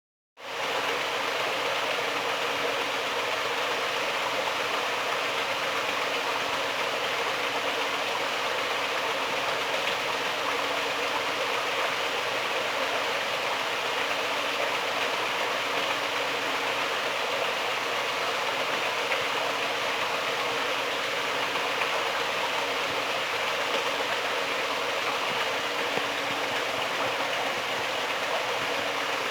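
Fish-farm aeration equipment running steadily, churning and splashing the water of a fish tank, with a faint low motor hum underneath.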